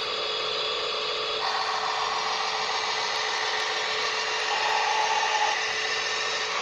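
Small electric motors of remote-controlled construction models running with a steady whine. A second tone joins about a second and a half in, and the whine gets louder for about a second near the middle, as the motors change load or speed.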